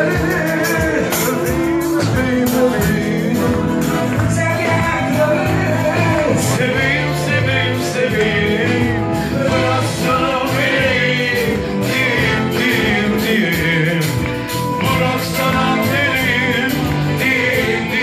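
Live band playing a pop song on drum kit and bass guitar, with singing over it.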